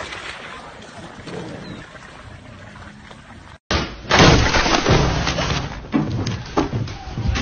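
Loud thumps and knocks with a door-like slam, as a dog bangs against a flap-style pet door from the other side. They come in the second half, after a quieter stretch of outdoor noise.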